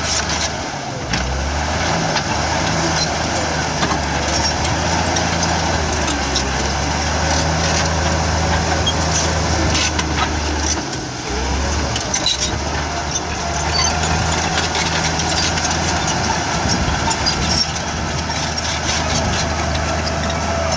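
Komatsu D53-16 bulldozer's diesel engine running steadily with a deep hum, dipping briefly about a second in and again about eleven seconds in. Scattered sharp clicks and knocks are heard over the engine.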